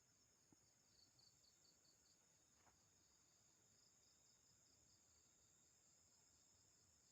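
Near silence of a night outdoors: faint insects keep up a steady high trill, with a run of quick, evenly pulsed high chirps about a second in and again midway.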